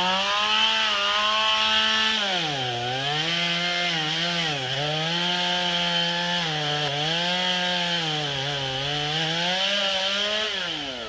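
Stihl MS 180 C two-stroke chainsaw at full throttle cutting into wood. Its pitch sags several times as the chain bogs down in the cut and climbs back each time, then drops away near the end as the throttle is released.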